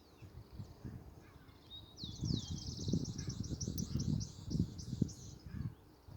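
A songbird singing a fast, high trill of repeated short notes for about three seconds, starting about two seconds in. Irregular low thumps run underneath.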